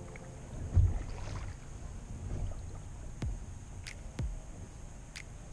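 A small Minifish sailboat under way: water sloshing against the hull over a low rumble, with one dull thump about a second in and a few sharp clicks later.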